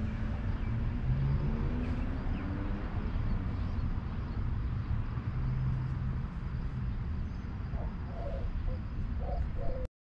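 Outdoor ambience of wind rumbling on the microphone with faint distant road traffic. It cuts off suddenly near the end.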